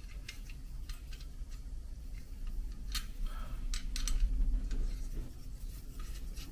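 Scattered small metal clicks and scrapes from hands screwing a camp gas stove's mix chamber down onto its feed line inside a metal stove body, a little busier in the middle.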